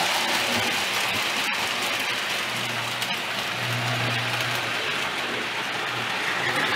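Marx Trains O-27 tinplate toy train running on three-rail track: a steady rushing rattle of wheels on the tinplate rails, with a low motor hum that grows louder in the middle.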